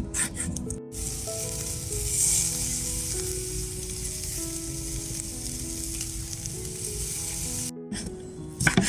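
Pork sizzling as it cooks: a steady hiss that starts abruptly about a second in and cuts off near the end, with background music underneath.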